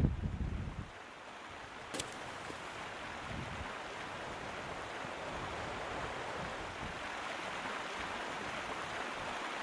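River water rushing steadily. A low thump lasting under a second comes at the very start, the loudest part, and a single sharp click about two seconds in.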